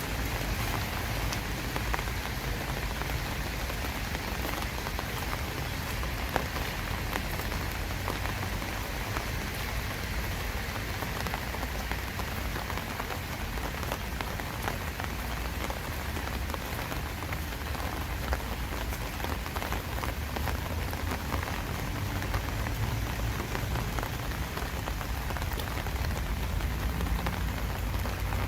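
Steady rain falling, with scattered individual drops tapping out over a continuous hiss and a low rumble underneath.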